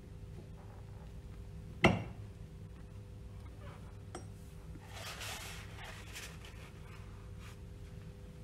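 Black seal-fitting tool and metal seal cover being handled on a wooden bench while pressing in the shaft-seal seat: one sharp knock about two seconds in, then a second or so of scraping and rubbing as the tool is lifted out and set down.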